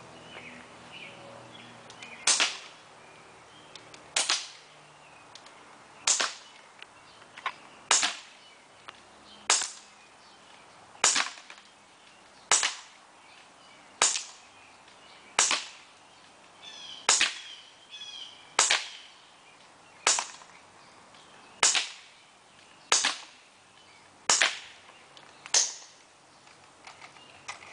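Crosman C11 CO2-powered airsoft pistol fired semi-automatically, one shot at a time: a string of about sixteen sharp shots, roughly one every second and a half.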